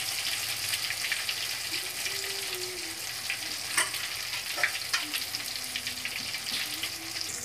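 Marinated fish pieces deep-frying in hot mustard oil: a steady sizzle with scattered crackles and a few sharper pops.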